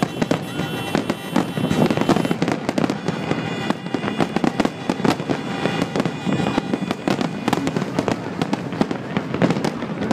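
Fireworks display at its height: aerial shells bursting in rapid, overlapping bangs and crackles, several a second without pause.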